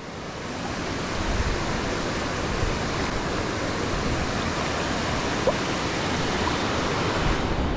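Steady rushing noise of flowing water, even and unbroken, swelling up over the first second.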